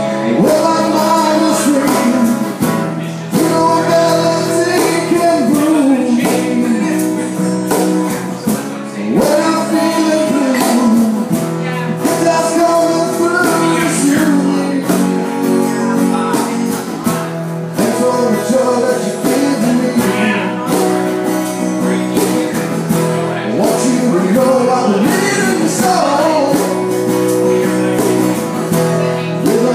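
Live acoustic band music: a male voice singing over two strummed guitars, played steadily throughout.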